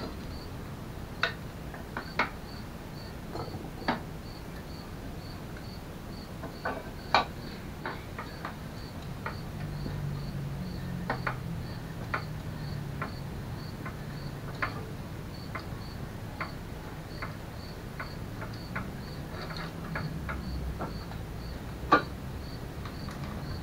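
Metal tools and parts clinking and clanking at irregular moments while a mobility scooter's rear end is worked on, with two sharper clanks a few seconds in and near the end. Behind it, a faint high-pitched chirp repeats evenly two or three times a second.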